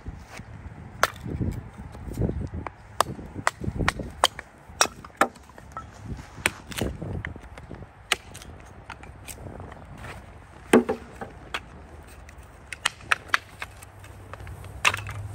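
A hatchet splitting kindling on a wooden chopping block: a run of sharp, irregularly spaced chops and knocks as the blade is tapped into small sticks and driven through them. The hardest strike comes about two-thirds of the way in.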